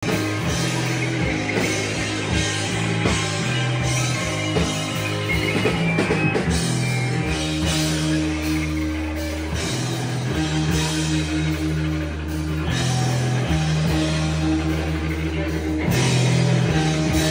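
Live rock band playing electric guitars, bass guitar and drums, with no singing. Steady drum strokes drive the first several seconds, then the drums thin out, leaving held bass and guitar notes ringing.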